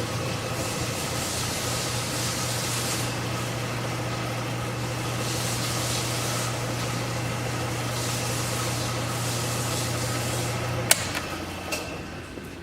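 Jet JMD-18 mill-drill running with its spindle turning, a steady motor hum with a whine of higher tones over it. About eleven seconds in, a sharp click as it is switched off, and the hum dies away.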